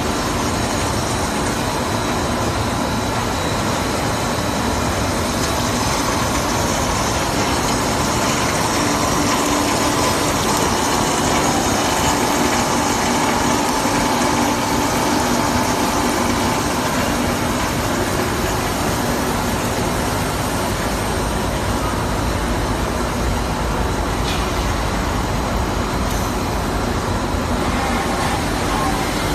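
A five-screw, 2000 mm stretch film extrusion line running at high speed, making a steady, loud machine noise with a few faint steady tones, from its motors and the film winder.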